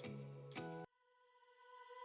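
Background music with plucked notes that cuts off abruptly about a second in, leaving only a faint ringing tone.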